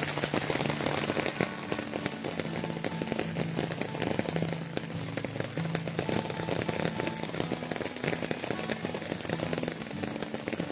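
Steady rain falling on garden foliage, a dense patter of drops close to the microphone, with soft low background music underneath.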